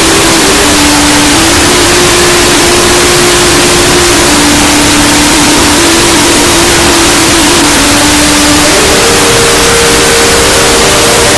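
Extremely loud, heavily distorted and clipped audio: a harsh hiss across all pitches with a few held tones that step down in pitch early on and step back up about nine seconds in, like a slow distorted melody.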